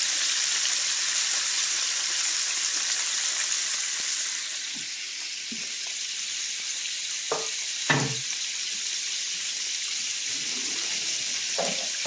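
Floured chicken fingers deep-frying in a large pan of hot oil: a steady sizzle. A couple of short knocks come about two-thirds of the way through.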